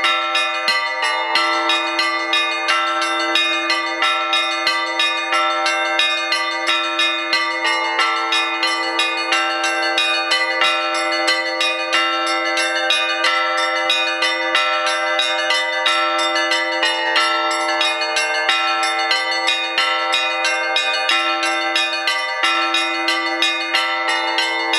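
Orthodox monastery bells being rung: a quick, even succession of strikes on several higher bells in a repeating pattern, over a steady lower bell tone that keeps sounding.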